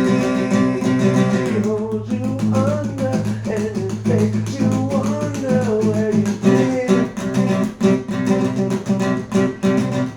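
Song with strummed acoustic guitar; from about two seconds in, a wavering melody line comes in over the guitar.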